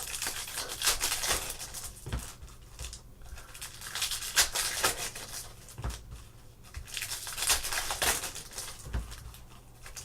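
Plastic and foil packaging of trading-card boxes and packs crinkling and tearing as it is opened, with irregular rustling and a few light clicks of handling.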